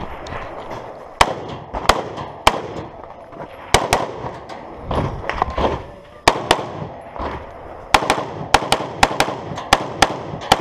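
Scoped semi-automatic rifle firing a string of shots: a few singles and pairs spaced a second or more apart, then a fast run of about eight shots in the last three seconds.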